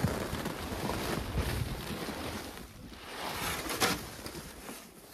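Rustling and crinkling of a snow-covered woven plastic sack as it is gripped, lifted and pulled, with a sharp crackle about four seconds in.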